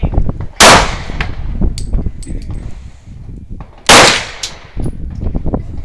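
Two loud gunshots about three seconds apart, each with a short ring-out, and lighter sharp clinks and knocks between them.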